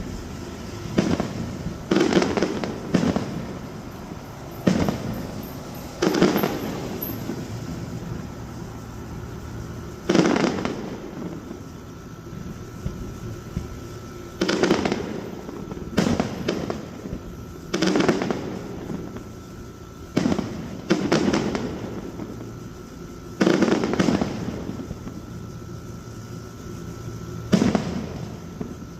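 Aerial fireworks bursting: about a dozen loud bangs at uneven intervals, some in quick pairs, each trailing off in an echo.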